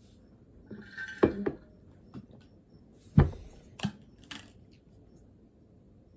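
A few sharp knocks and small clatters of objects being handled and set down, the loudest about a second in and about three seconds in.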